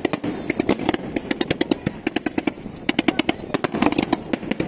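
Fireworks going off in a fast, irregular string of sharp bangs and crackles, many a second, with some louder reports among them.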